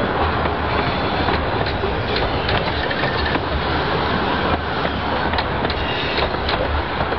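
A 15-inch-gauge miniature railway train running along the track with a steady rumble, its wheels clicking irregularly over the rail joints.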